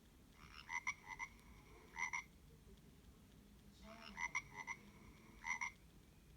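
Nokia 1650 mobile phone playing a ringtone through its small speaker: a buzzy, croaking electronic phrase about two seconds long, played twice.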